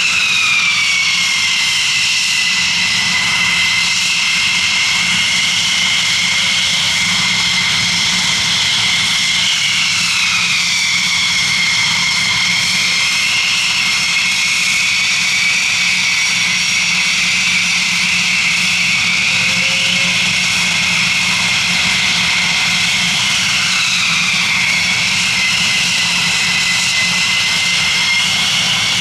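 Jet aircraft engine running loud and steady, its high turbine whine slowly wavering down and up in pitch over a low hum.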